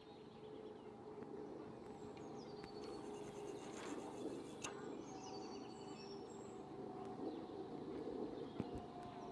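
Faint lakeside background with birds chirping while a carp rod is cast out, with a single sharp click about four and a half seconds in.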